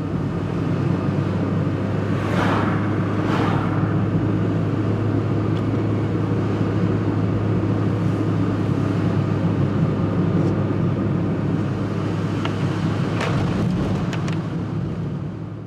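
Car driving at a steady speed, heard from inside the cabin: a constant engine drone over road and tyre noise, with a few brief sharper sounds about three seconds in and again near the end.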